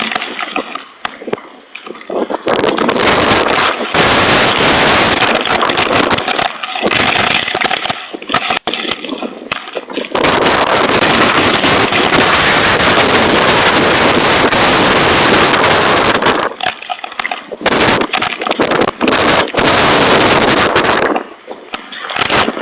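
Hail pelting down in a thunderstorm, a dense loud clatter of many small impacts mixed with gusting wind on the microphone. It comes in waves, easing about a second in and again near the end, with an unbroken heavy stretch in the middle.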